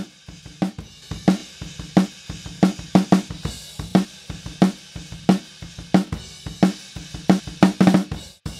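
Soloed snare-top microphone track of a recorded drum kit playing back: single snare strokes about every two-thirds of a second, with cymbal and kick drum bleeding into the mic between hits. A quick run of fast snare notes comes near the end.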